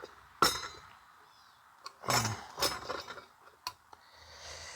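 Metal tools and vacuum motor parts clinking and knocking together, a handful of sharp clinks with brief ringing, while working at a fan that is stuck on the motor shaft.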